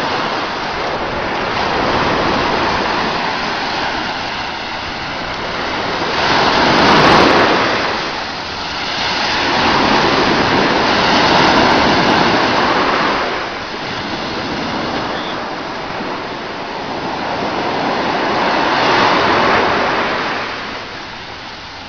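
Sea surf, waves breaking and washing ashore in slow surges a few seconds apart, the loudest about seven seconds in.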